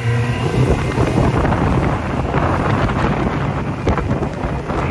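Heavy wind buffeting the microphone on a motorboat under way, over the steady rumble of the boat running across the water.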